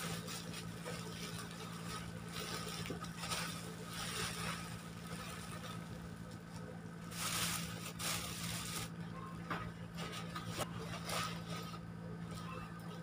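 Plastic packaging crinkling and rustling in irregular bursts as a clear plastic bag and a bubble-wrap mailer are handled, loudest a little past the middle, over a steady low hum.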